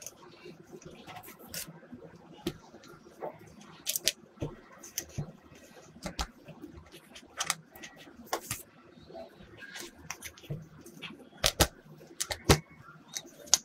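Irregular clicks and taps of hands handling plastic play-dough tools, a toy rolling pin among them, on a tabletop, with a few louder knocks near the end.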